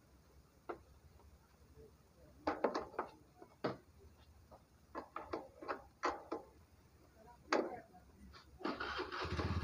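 Hammer striking and prying at the slats of a wooden shipping crate: irregular sharp knocks of metal on wood, some in quick clusters. Near the end a steady engine noise comes up and grows louder.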